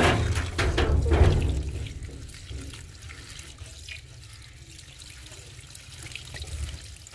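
Tap water running and splashing onto chopped coriander leaves in a plastic colander in a sink, with hands stirring the leaves to wash the soil out. It is loudest in the first second and a half, then settles to a steadier, quieter stream.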